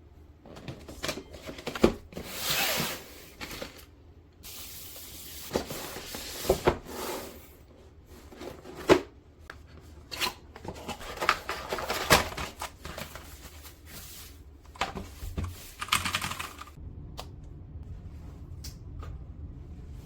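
Keys of a mechanical keyboard clacking in irregular clusters of sharp clicks, with a few short bursts of rustling handling noise.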